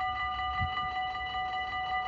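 Dutch level-crossing warning bells ringing in a rapid, even rhythm while the red lights flash and the barriers are down, the signal that a train is approaching.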